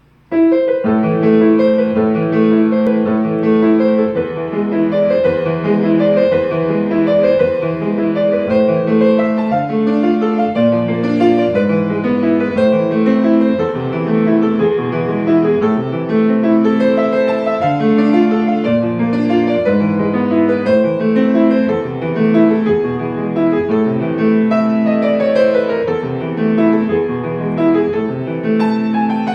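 Solo piano playing a fast piece of repeated chords and running notes, starting abruptly about half a second in, with a falling run of notes near the end.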